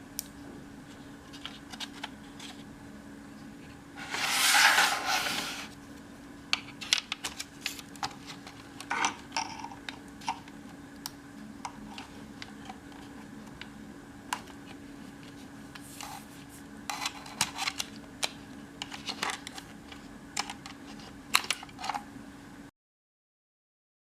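Hands working on a laptop being taken apart: scattered small clicks and taps of parts and tools, with a scraping rustle about four seconds in. The sound cuts to silence just before the end.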